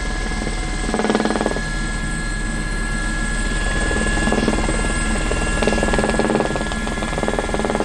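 Aérospatiale SA 341F Gazelle helicopter in flight, heard from inside the cockpit: the steady whine of its Turbomeca Astazou turboshaft over the fast, even beat of the rotor.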